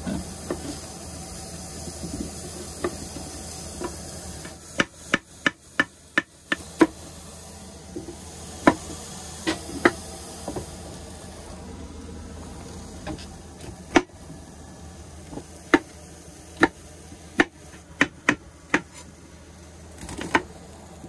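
Chef's knife chopping vegetables on a wooden cutting board: a quick run of chops about five seconds in, then single chops roughly a second apart. Underneath, onions sizzle faintly in a frying pan on low heat.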